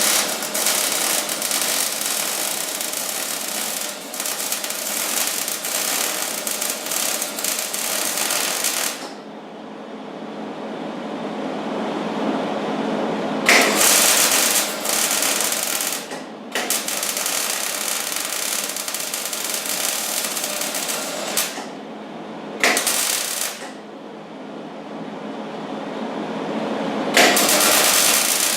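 Millermatic 90 wire-feed welder's arc crackling and sputtering as beads are laid on a snowblower impeller housing. There is one long run of about nine seconds, then two runs of a few seconds with a brief break between, a short tack, and another run starting near the end. Each run begins with a sharp crack as the arc strikes, and a quieter hiss fills the pauses.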